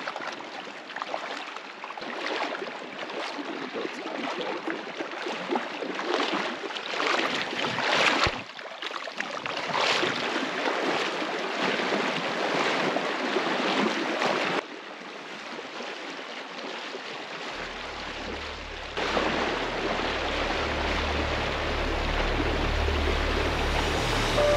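River water rushing and splashing around a raft, with a low steady rumble coming in near the end.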